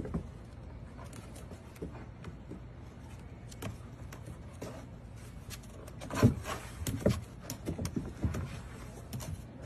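Puppy paws and claws knocking and scratching on the hollow plastic steps of a toddler slide as an Australian Shepherd puppy climbs. The knocks are scattered, with a cluster of louder ones about six to eight seconds in, over a steady low hum.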